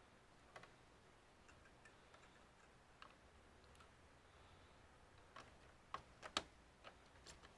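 Faint, scattered clicks and light taps of small computer parts being handled, a cluster of them near the end with one sharp click the loudest.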